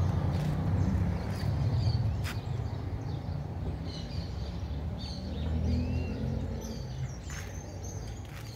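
Outdoor street ambience: a low rumble that eases off over the first few seconds, with birds chirping now and then and a few sharp clicks.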